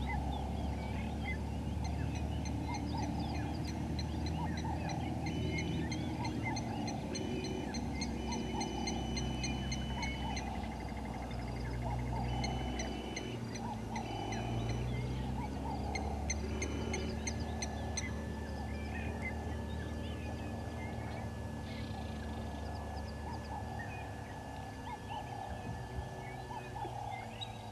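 Morning chorus of many wild birds calling at once: lower calls overlapping constantly under higher chirps and trills, with a steady high note that switches on and off in the first half. A steady low hum runs underneath.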